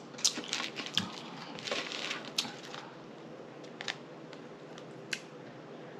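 Crinkling and sharp clicks of things being handled close to the microphone, dense for the first three seconds, then a few scattered clicks.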